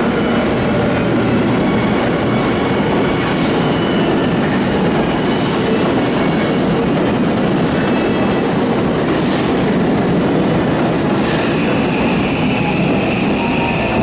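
Electric commuter train running past with a steady loud rumble of wheels on rail and a few sharp clicks. A high steady wheel squeal starts about eleven seconds in.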